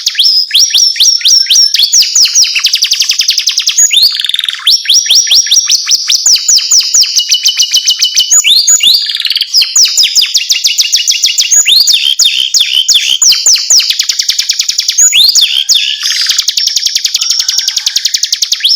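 Domestic canary singing a long unbroken song of fast trills and rapidly repeated notes, switching to a new phrase every second or two.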